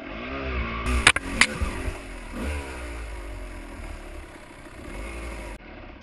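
Kawasaki dirt bike's two-stroke engine revving up and down as it is ridden through a muddy puddle, with two sharp knocks about a second in.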